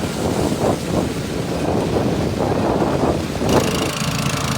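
Wind buffeting the microphone and surf washing in surges, then near the end a small water pump engine starts and runs with a steady hum.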